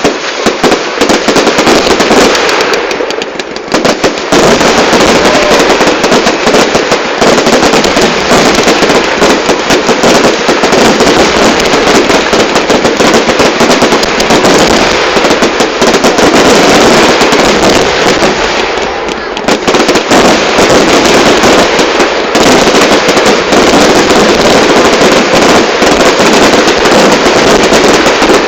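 Fireworks going off in a dense, near-continuous barrage of bangs and crackles, very loud on a phone microphone, easing briefly twice.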